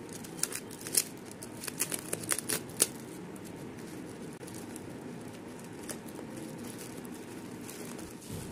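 Foil bubble-wrap packaging crinkling and crackling as it is handled and unwrapped, with a quick run of sharp crackles in the first three seconds. After that only a steady low background noise is left.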